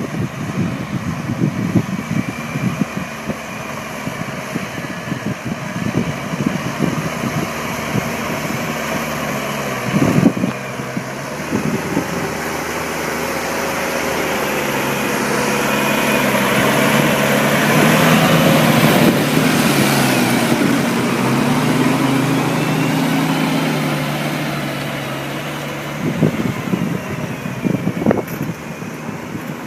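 Deutz-Fahr TTV 610 tractor engine running while ploughing, growing louder to a peak about two thirds through and then fading again. Gusts of wind buffet the microphone at the start and near the end.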